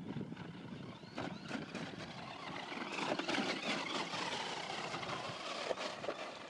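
Brushed-motor Arrma Mojave RC short-course truck driving over wet gravel and mud: electric motor running and tyres crunching and spattering. It grows louder about a second in and is loudest around three to five seconds in as the truck passes close.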